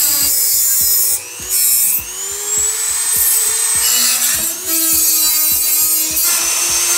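Handheld rotary tool with a cutoff wheel grinding through tabs on a steel motorcycle frame, its whine dropping as the wheel bites and rising again as it frees up. Background music with a steady beat, about four thumps a second, plays underneath.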